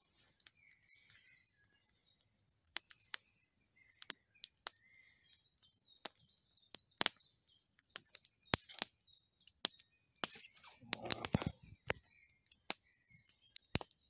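Campfire crackling with irregular sharp pops, over faint birdsong. A short rustle about eleven seconds in.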